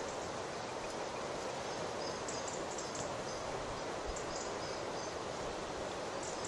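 Steady outdoor background noise, an even hiss, with a few faint short ticks.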